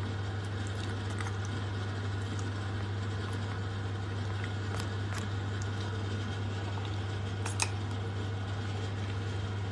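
Steady room tone with a constant low hum and a few faint clicks, one slightly louder click late on.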